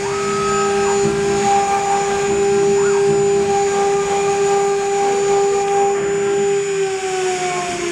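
Changsheng spindles of a six-head CNC router whining steadily at high speed while engraving into a wood board, with a hiss of cutting under the whine. Near the end the whine starts falling in pitch as the spindles slow down.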